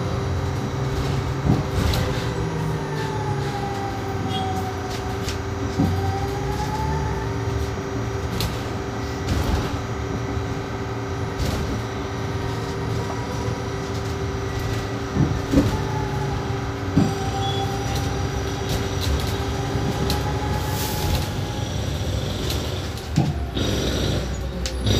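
Cabin sound of a Marcopolo Attivi Integral battery-electric city bus under way, driven by a WEG electric traction motor: a steady low rumble with a faint motor whine that rises and falls in pitch as the bus speeds up and slows. Occasional sharp knocks from the body.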